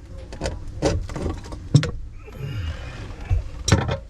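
Tools and drain parts being handled while working on a sink's push-button pop-up drain: a handful of sharp clicks and knocks, the loudest near the end.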